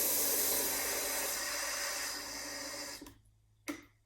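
Water running from a tap into a measuring cup for the bread dough, shut off about three seconds in, followed by a short knock.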